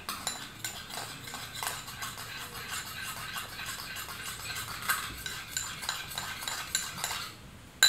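Metal teaspoon stirring instant coffee and water in a ceramic bowl. The spoon scrapes and clinks against the bowl's sides with a light ringing, and the stirring stops near the end.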